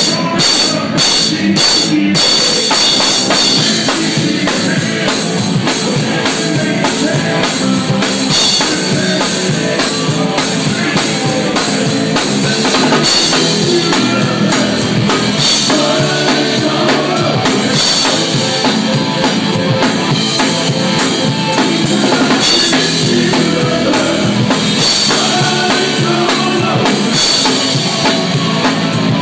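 Drum kit played live, a continuous beat of bass drum, snare and cymbals within music that goes on steadily.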